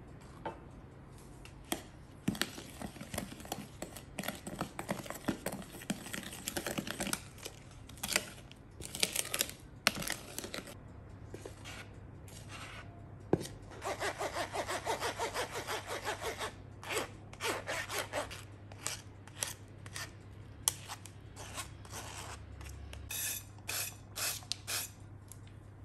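Metal spoon stirring and scraping cake batter in a mixing bowl, then batter being worked through a wire-mesh sieve, in bursts of quick rhythmic scraping strokes with sharp clinks of utensils between them.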